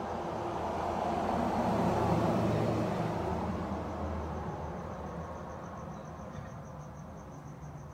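A vehicle passing by, its rumble swelling to a peak about two seconds in and then slowly fading away. Underneath runs a steady, high, pulsing chirp of crickets.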